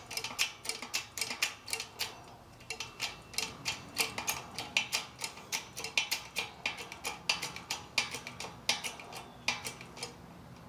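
Quick metallic clicking, about four clicks a second with a short pause two or three seconds in, from a hydraulic bottle-jack shop press being worked while a U-joint cap is pressed into a truck driveshaft yoke.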